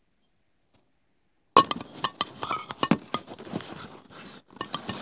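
Silence for about a second and a half, then a rapid clatter of clicks, knocks and clinks close to the microphone.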